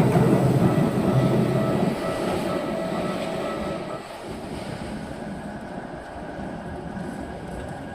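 A Keikyu electric train passing over a level crossing, its rumble loud at first and dying away steadily as it moves off.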